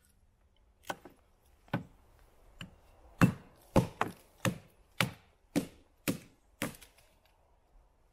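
Repeated sharp wooden knocks as a bushcraft knife (Taxus Wisdom) is driven into wood by hard blows, about a dozen in all. They are spaced out at first, then come about two a second from about three seconds in, and stop shortly before the end.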